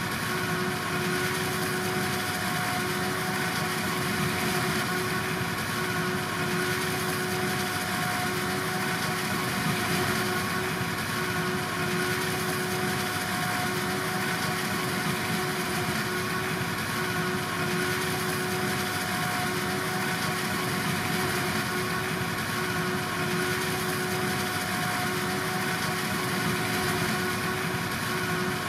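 Farm machinery at a silage harvest running at a constant speed: a steady engine hum with a constant whine.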